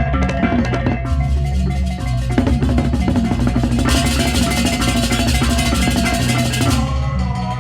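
Balinese baleganjur gamelan music: drums, gongs and clashing cymbals playing a fast, dense rhythm. From about halfway through, the cymbals grow much brighter and busier, then drop away shortly before the end.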